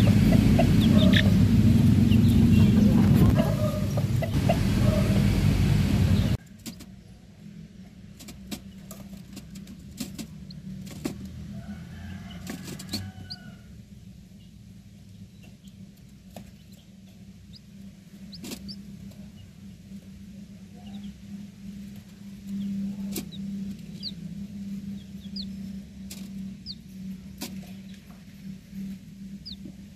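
A loud rushing noise for the first six seconds cuts off suddenly. After it comes the steady low hum of an egg incubator running, with scattered clicks and occasional short, high peeps from a newly hatched White Leghorn chick.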